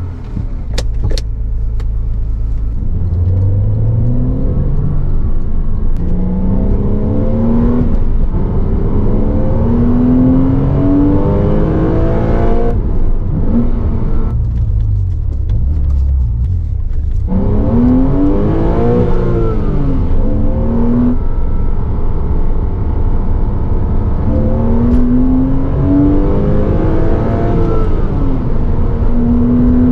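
Porsche Cayman 987's 2.7-litre flat-six engine, heard from inside the cabin: idling at first, then pulling away and revving up through the gears, with a rising engine note in each gear. In the middle it goes quieter off the throttle, then quick rev blips follow on the downshifts before it pulls hard again.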